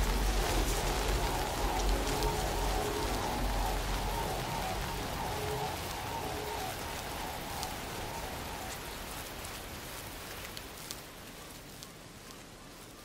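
Film ambience: a steady noisy wash with a low rumble and faint pulsing tones, fading out gradually.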